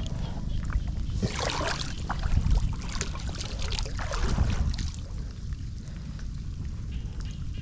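Muddy floodwater splashing and swirling as a hand works at a blocked roadside drain, over a steady rumble of wind on the microphone. The splashing comes in bursts and eases about five seconds in.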